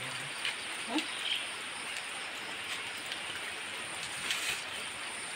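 Steady rain hiss, with a few brief faint chirps and calls over it.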